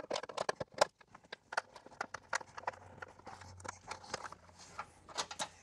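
Plastic wire-retaining clips being popped loose from a car's inner fender liner: an irregular run of sharp clicks and snaps, the loudest about a second in and near the end.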